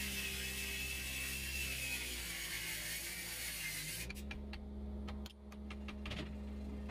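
Wood lathe running with a steady motor hum while a tool works the spinning teak workpiece, a loud hiss with a slowly falling whine that stops about four seconds in. A few sharp clicks follow over the hum.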